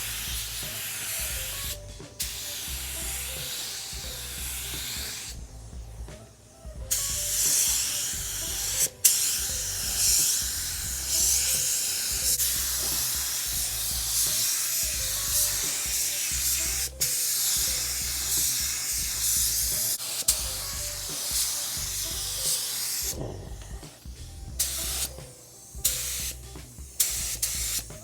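Air-fed gravity spray gun spraying primer in long passes, a steady hiss of air and atomized paint that pauses briefly a few times as the trigger is released, then comes in short bursts near the end.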